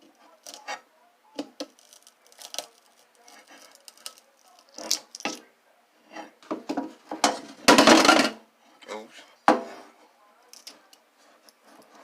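Loose metal scrap parts from a microwave being rummaged through by hand, clinking and clattering in short knocks. There is a longer, louder rattle about two-thirds of the way through, then a single sharp knock.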